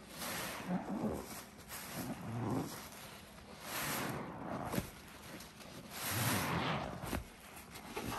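A foam-laden sponge squeezed over and over by rubber-gloved hands in thick soapy cleaning paste: wet squelching and foam crackle with each squeeze, one every second or two.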